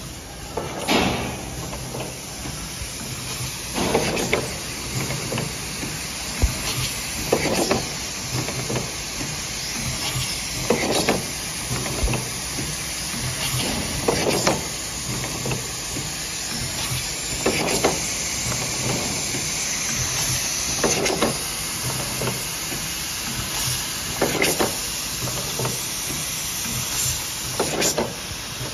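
Six-colour pneumatic pad printing machine with a conveyor running its print cycle. A short, louder burst of air and machine noise comes about every three and a half seconds as the pads stroke and the conveyor indexes, over a steady hiss.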